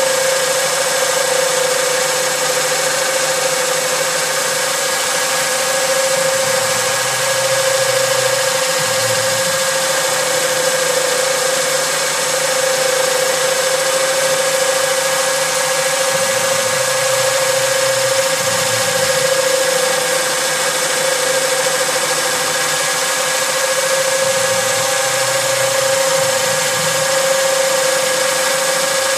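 Boxford Duet CNC lathe running as it turns a workpiece: the spindle and drive give a steady machine whine with a strong single pitch over a hiss of noise, while the tool cuts. A lower hum swells and fades a few times.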